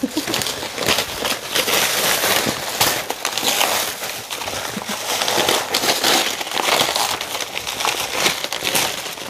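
Gift-wrapping paper and tissue paper being torn and crumpled by hand, a continuous rustling and ripping full of small crackles.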